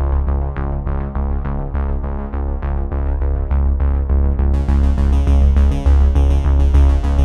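Electronic background music: synthesizer notes over a steady bass, with a bright high-pitched rhythmic layer joining a little past halfway.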